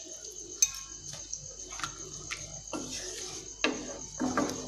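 Wooden spatula stirring thick spinach-and-pea gravy in a non-stick pan, mixing in water just added, with light clicks and knocks as it meets the pan and a few wet squelching strokes near the end.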